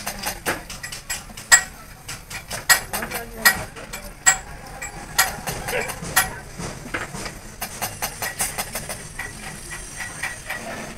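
Irregular sharp metallic clinks and knocks as a Hino truck differential carrier housing is handled, scrubbed and turned in a metal basin of oil.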